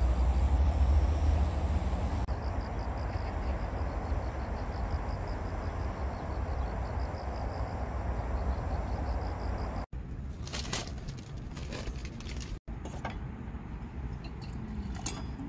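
Wind rumbling on the microphone outdoors, with a faint high chirp pulsing steadily. About ten seconds in it cuts to scattered clicks, then water being poured from a small camping kettle into a cup near the end.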